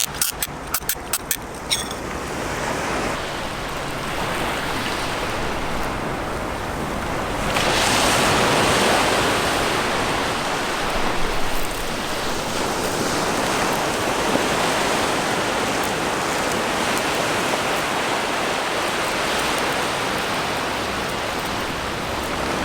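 A few sharp clicks, then a steady hiss that grows louder about seven and a half seconds in: vegetables sizzling as they are lightly stir-fried in a small campfire frying pan, the last step of seasoning it with olive oil.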